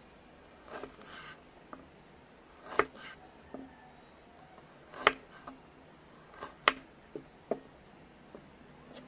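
Kitchen knife slicing a carrot into rounds on a wooden chopping board: separate sharp knocks as the blade cuts through onto the board, unevenly spaced about a second apart, three of them louder than the rest.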